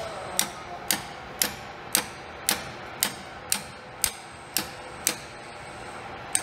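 Ball-peen hammer tapping a steel pin punch at a steady pace, about two sharp taps a second and about ten in all, pausing near the end: drifting the broken brass shear pin pieces out of a metal lathe's lead screw hub.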